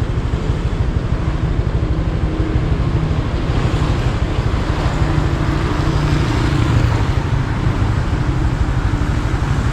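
A motor vehicle engine running steadily, a loud low rumble throughout.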